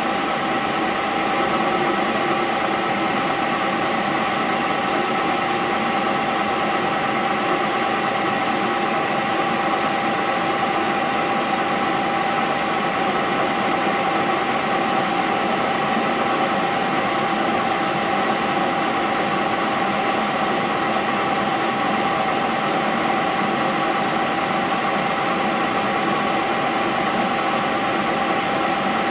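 Mondial Gallic 16 metal lathe running steadily under power, turning a metal shaft, with a constant whine from its headstock gearing.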